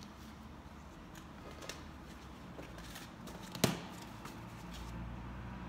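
One sharp click about two-thirds of the way through, a hard plastic card holder being set down on the table among the other cased cards, with a few fainter ticks of cases being handled over a low steady room hum.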